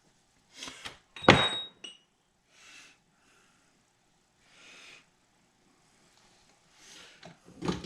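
Metal engine parts being handled: one sharp metallic clink with a brief ring about a second in, then a few soft shuffling sounds.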